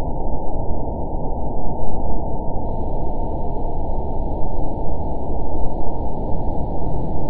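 Steady low rushing rumble, a synthetic hover-engine sound effect for a spacecraft floating on its thrusters; a faint higher hiss joins it a little under three seconds in.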